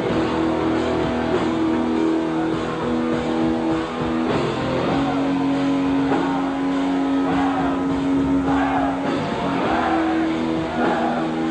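Live rock band playing loud, with electric guitar chords held over drums. From about seven seconds in, a higher phrase repeats roughly once a second.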